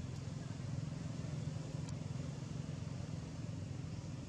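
Steady low rumble of a running engine, unchanging throughout, with a few faint clicks.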